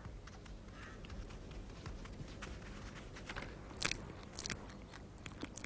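Eurasian otter biting and chewing a freshly caught rat: faint, irregular crunching clicks, with a couple of louder crunches about four seconds in.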